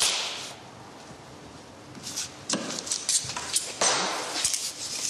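Light taps, clinks and scrapes of tools and small parts being handled on a workbench, scattered irregularly from about two seconds in, after a brief hiss at the very start.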